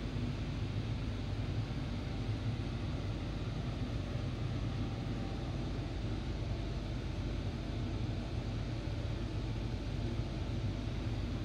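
Interior noise of a Marmaray E32000 electric commuter train car: a steady low rumble with an even hiss over it.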